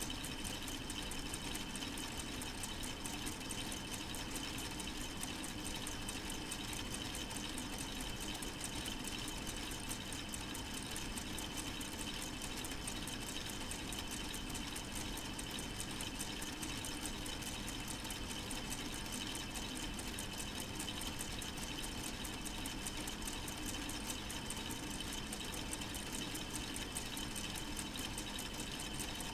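K'nex four-cylinder model engine running steadily: its plastic gears and moving parts make an even, rapid clicking whir with no change in pace.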